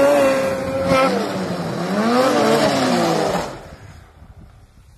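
Snowmobile engine revving hard, its pitch rising and falling with the throttle, then dropping away about three and a half seconds in, leaving only faint ticks.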